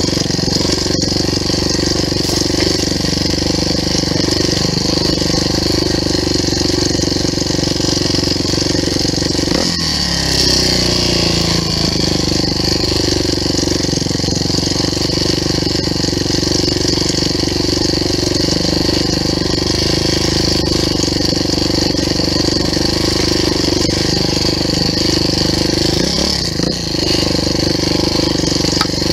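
Off-road motorcycle engine running steadily under throttle while riding through snow. The engine note shifts about ten seconds in and again near the end as the revs change.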